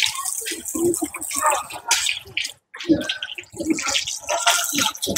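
Hot oil sizzling on a griddle as scallion pancakes fry, a steady hiss, with indistinct voices behind it.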